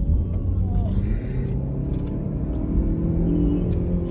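Car driving on a winding mountain road, heard from inside the cabin: steady engine running with low road rumble, the engine note shifting slightly in pitch.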